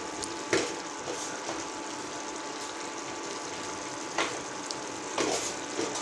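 Pav bhaji sizzling steadily in a metal pan on the stove, with a metal spoon stirring it and scraping against the pan a few times: near the start, about four seconds in and twice near the end.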